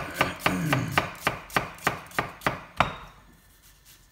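Chef's knife slicing down through half an onion onto a plastic cutting board: a quick, even run of knife taps on the board, about four a second, that stops about three seconds in.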